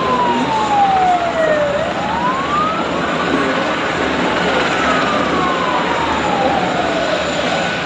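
Emergency-vehicle siren wailing: its pitch falls slowly over about three or four seconds, then quickly rises again, and this happens twice. It sounds over a loud, steady background of city noise.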